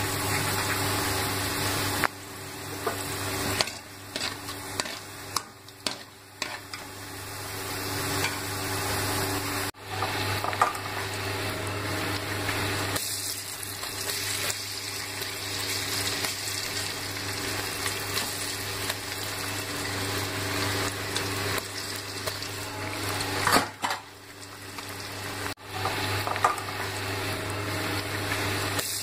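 Marinated cauliflower pieces deep-frying in hot oil in a metal kadai: a steady sizzle that dips quieter a few times. A few sharp clinks of a utensil against the pan.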